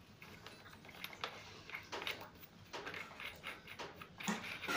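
Faint, scattered light clicks and taps of small tools being handled while the wall is measured and marked for mounting a lavatory sink.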